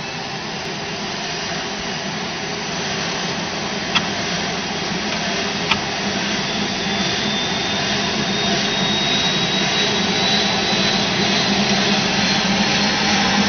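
Eurocopter EC155's twin turboshaft engines starting up, heard from inside the cabin: a steady turbine whine that climbs slowly in pitch while the overall level builds as the engines spool up. Two sharp clicks, about four and six seconds in.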